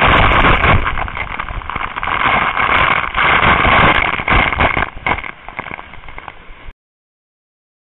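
Water from a waterfall pouring straight onto the camera: a loud, steady rushing and splashing noise. It stops abruptly about seven seconds in.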